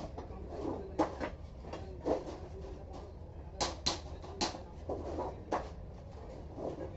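Irregular sharp knocks and clinks, about eight of them spaced unevenly, from metal pieces being handled or worked while C-scroll grill parts are made, over a low steady hum.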